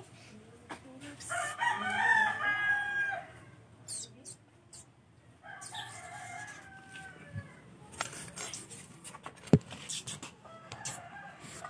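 A rooster crows twice: a long crow about a second in and a fainter one in the middle. Scattered clicks follow, with a sharp knock near the end.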